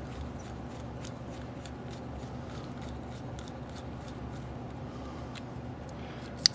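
Faint, irregular clicks and ticks of a screwdriver turning the hammer screw into the steel frame of a Pietta 1851 Navy cap-and-ball revolver, with one sharper click near the end, over a steady low hum.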